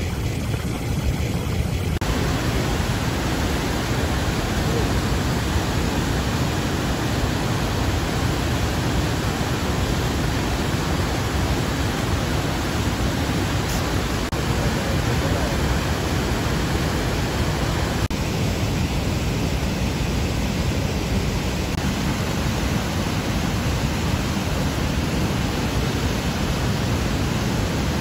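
Steady rush of a low river waterfall and its white-water rapids.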